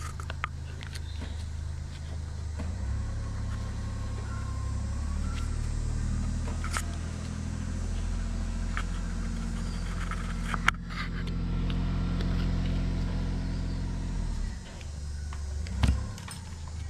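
A steady low mechanical hum, like an engine running, with a few sharp light clicks and taps as a pick pries the plastic keypad ribbon connector out of the pallet jack's tiller head.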